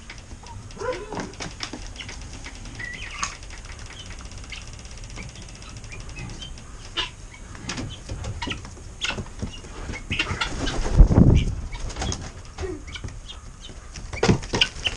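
Chickens flapping their wings, with scattered sharp taps and ticks throughout and a loud burst of flapping about eleven seconds in.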